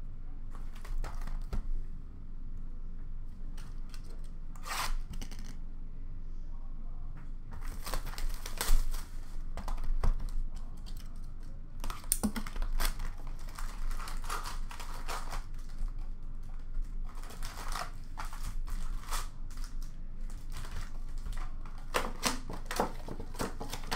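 Hockey card boxes and foil packs being handled: scattered taps and clicks of cardboard, with rustling, crinkling and tearing as packs are pulled out and ripped open.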